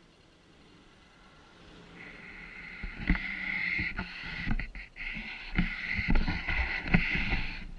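Fishing reel whirring steadily while a hooked carp is played on a bent rod. The whir builds up about two seconds in and cuts off suddenly near the end, with dull knocks from handling the rod and camera.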